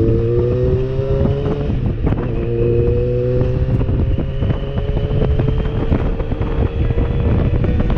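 Yamaha motorcycle engine pulling along the road, its pitch climbing slowly, dipping once about two seconds in at a gear change and then climbing again, with wind buffeting the microphone.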